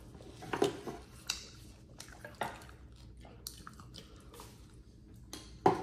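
Close-miked chewing and wet mouth sounds of people eating, with scattered short smacks and clicks and a sharper click near the end.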